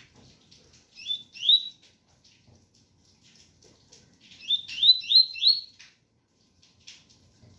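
Double-collared seedeater (coleiro) singing a 'tui tui' song: a short two-note phrase about a second in, then a quick run of four rising whistled notes a few seconds later, with faint chips between.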